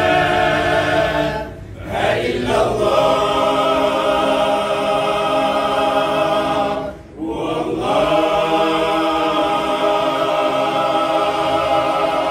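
A group of voices chanting together in long held notes, with brief breaks for breath about two and seven seconds in.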